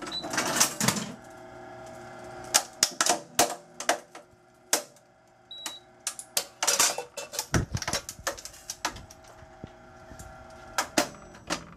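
PPD-2G hard drive destroyer and its autoloader cycling through a drive: a run of sharp mechanical clacks and knocks as the drive is pushed in and destroyed and the next drive drops into the loader. A short high beep sounds near the start and again about halfway.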